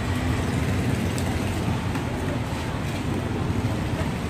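Battered bananas deep-frying in a large wok of oil, a steady sizzle, over the low rumble of motor traffic.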